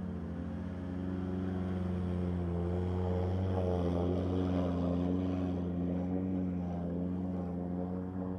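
Polaris off-road engines running steadily under load while wading through marsh water, a low even engine note that wavers slightly in pitch midway.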